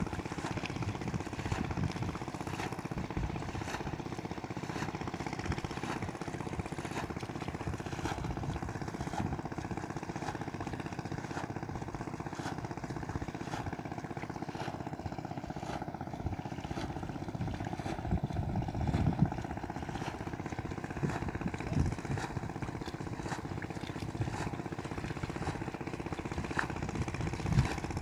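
An engine running steadily with an unchanging drone, with a few brief louder knocks or splashes near the end.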